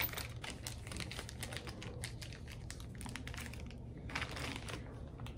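Small sofa-assembly screws and washers handled in the hand, a quick run of light clicks and rustling, with a louder rustle about four seconds in.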